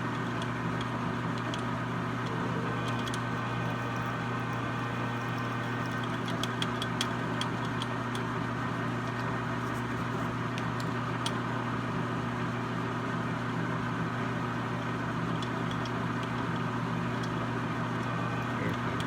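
A steady electric motor hum, with scattered light clicks for a few seconds in the middle.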